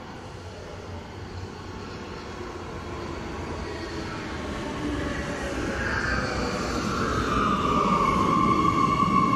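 Oslo Metro MX3000 train arriving at an underground platform from the tunnel, its rumble growing steadily louder. About six seconds in, a high whine comes in, falls in pitch as the train brakes, and then holds steady.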